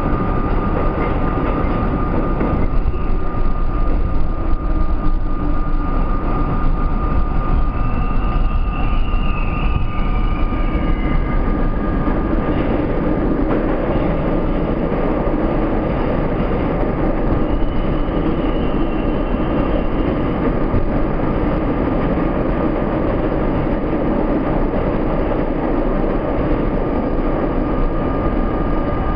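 New York City subway train running at speed through a tunnel: a steady rolling rumble of wheels on rail under a constant high hum. Faint high squeals come twice, around a third of the way in and again just past the middle.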